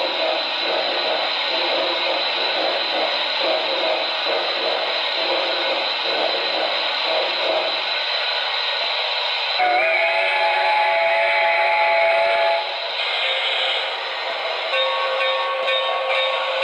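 Sound system of a Pennsylvania Railroad T1 duplex steam locomotive model: rhythmic steam exhaust chuffing for about eight seconds, then a steam whistle held for about three seconds. Hiss and a steadier tone follow near the end.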